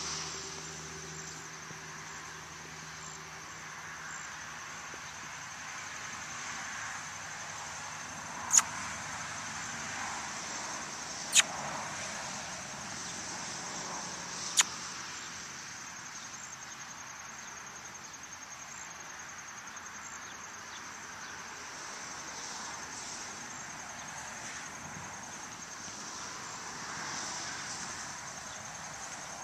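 Steady high-pitched insect chirring in an open field, with three sharp clicks a few seconds apart near the middle. A low engine drone fades out in the first few seconds.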